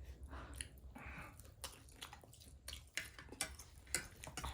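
Faint chewing of noodles: small wet mouth clicks and soft smacks scattered through.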